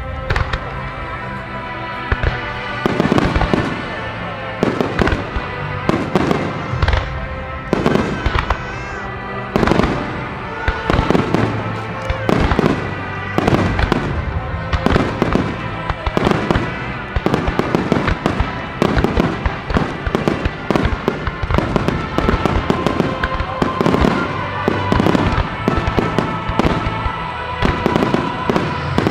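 Aerial firework shells from Kikuya Obata Fireworks bursting in a rapid, irregular string of booms, about one or two a second, starting about three seconds in. Music plays under the bursts throughout.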